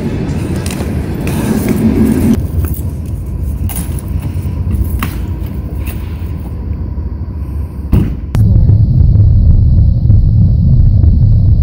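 Low rumbling noise of a car driving, heard from inside the car, louder and steadier from about eight seconds in. Before that, rougher rumbling with scrapes and a few knocks.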